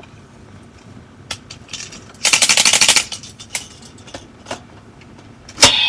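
Hard plastic parts of a Kamen Rider Build DX toy being handled: scattered light clicks, then a loud burst of rapid, even ratcheting clicks lasting under a second, and a single sharp snap near the end.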